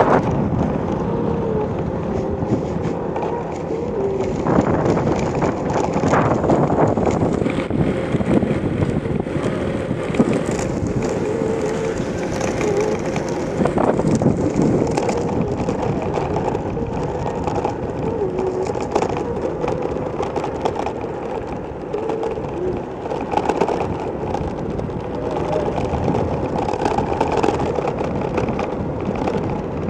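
Steady rolling road noise and rushing air from travelling along a paved street in traffic.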